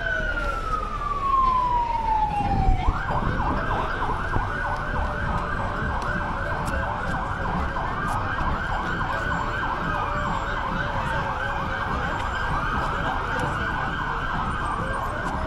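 Emergency vehicle siren: a slow wail falls away over the first few seconds, then switches to a fast yelp of rapid rising-and-falling whoops. A couple of low thumps come about two and a half seconds in.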